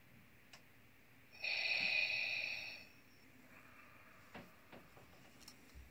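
Darth Vader respirator breathing loop played by a HyTechToyz Electronic Digital Breathing Box through its small speaker at low volume: one loud hissing breath about a second and a half in, then a much fainter one.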